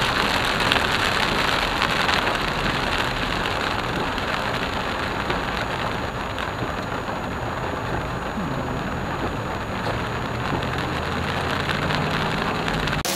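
Heavy monsoon rain falling on a moving car's roof and windshield, heard from inside the cabin, mixed with tyre spray from the flooded road. The rain is a little louder for the first few seconds, then eases slightly.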